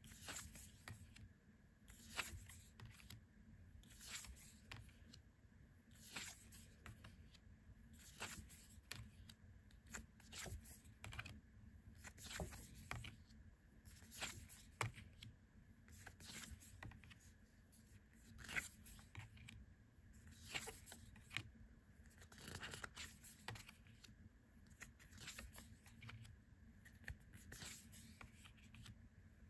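Tarot cards being slid one at a time off a handheld deck and set down on a pile: a quiet papery swish of card against card about every two seconds, with small ticks in between.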